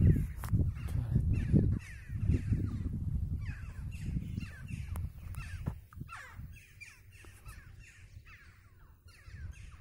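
Many birds calling over and over, short falling calls several times a second, thinning toward the end. Wind and handling noise rumble on the microphone during the first two seconds.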